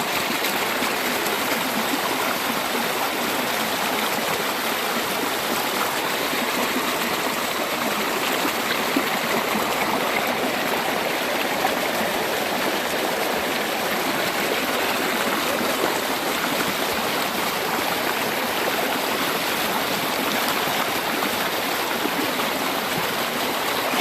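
Steady rush of fast brook water pouring through and around a gold sluice set in the current, loud and close up.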